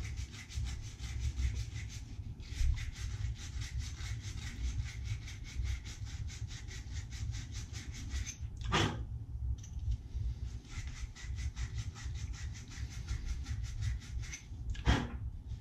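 Quick, even back-and-forth rasping of a wire cleaning brush scrubbed over the end of a 1/2-inch copper pipe, cleaning it to bare copper before soldering. Two louder knocks come about halfway and near the end.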